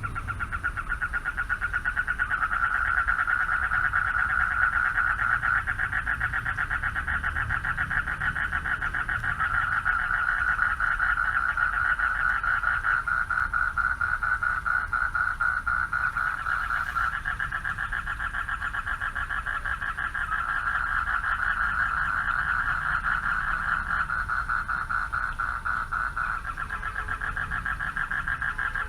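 Chorus of male frogs calling for mates from a pond at night: many rapid, pulsed trilling calls overlapping into a continuous high-pitched din.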